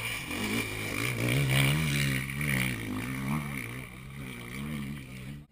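Enduro dirt bike engine revving hard as it climbs a steep dirt slope, its pitch rising and falling with the throttle and loudest about two seconds in. The sound cuts off abruptly near the end.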